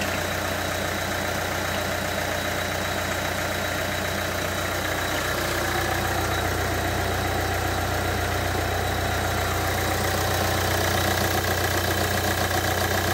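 Renault Kangoo's 1.5 dCi K9K four-cylinder common-rail diesel idling steadily with an even diesel clatter. Its Delphi injectors have just been repaired, and the idle runs smoothly without the revs hunting. It grows slightly louder near the end.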